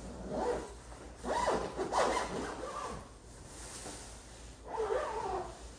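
Zipper on a waterproof foam cover being pulled around in several short strokes, with fabric rubbing.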